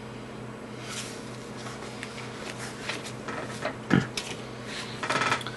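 Soft rustles and small clicks of handling, with one sharp knock about four seconds in, over a steady low electrical hum.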